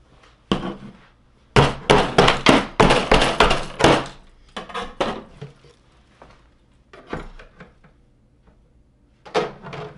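Rustling and a quick, irregular run of thumps and knocks as winter hats are pulled off, handled and tossed, densest in the first few seconds, with scattered knocks after and another short cluster near the end.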